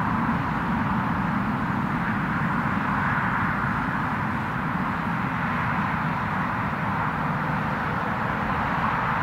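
Jet engines of a twin-engine narrowbody airliner running on the runway, heard as a steady, even rush of noise.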